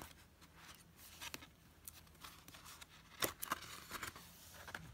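A picture book's paper page being handled and turned by hand: faint rustling and brushing, with a couple of sharp clicks about three seconds in.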